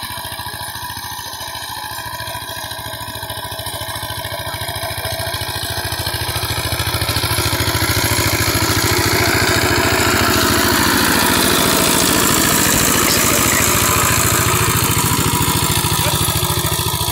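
Two-wheel power tiller's single-cylinder diesel engine running steadily under load while tilling dry soil. It grows louder over the first several seconds as the machine comes closer, then holds steady.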